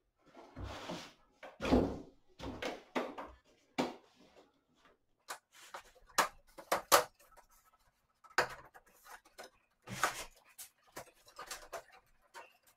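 Plastic and metal handling noises of an LG 42LN540V LED TV being taken apart with a flat-head screwdriver and by hand. Scrapes and knocks, with a run of sharp clicks about six to seven seconds in.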